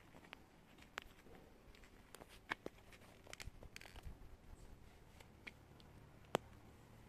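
Near silence broken by faint handling and movement noise: scattered small clicks and crunches, with two sharper clicks, one midway and one near the end.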